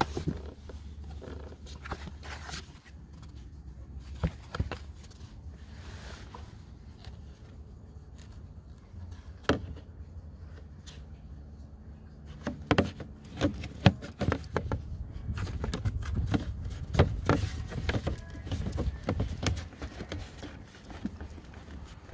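Plastic interior side trim panel of a 2016 Mercedes-Benz S550 being handled and worked into place: scattered clicks and knocks of plastic, a few at first and then many close together from about halfway on, over a low steady rumble.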